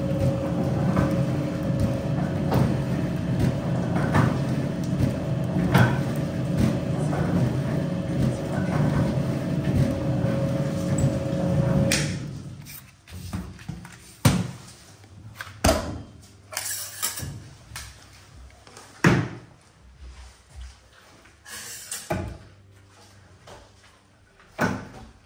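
Stainless-steel candy-pulling machine running with a steady motor hum and a click about every second and a half as its arms turn. The hum stops about twelve seconds in, leaving scattered knocks and thumps as warm candy is worked by hand on a wall hook.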